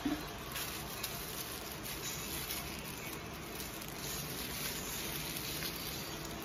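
Thin clear plastic bag crinkling and rustling as hands open it and handle the doughnut inside, an irregular run of small crackles.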